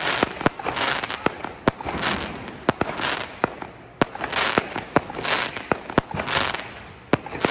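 Aerial fireworks going off overhead: sharp bangs, about two a second, over swells of crackling that rise and fade about once a second.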